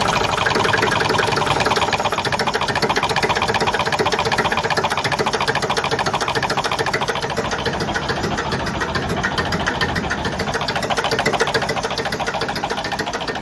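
Tractor diesel engine running steadily with a fast, even pulse.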